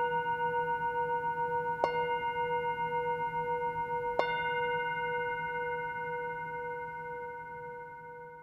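A bell rings on from a strike just before, and is struck again about two seconds in and about four seconds in. Each strike rings with a slowly wavering tone that fades away toward the end.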